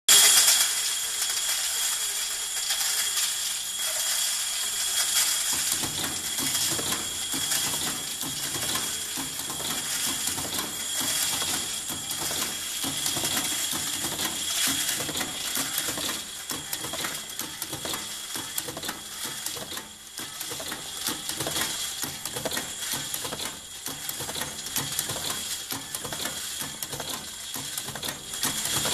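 Tridan RSL automated machine running: vibratory bowl feeders and a rotary indexing dial table moving small copper parts, a dense, continuous metallic clicking and clatter over a steady high tone. A lower clatter joins about five seconds in.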